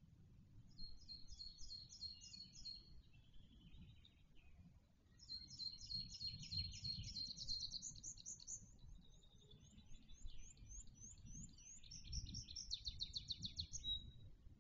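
Small songbirds singing phrases of fast-repeated high notes: one about a second in, a longer one from about five to ten seconds in, and another near the end. A faint low rumble runs underneath.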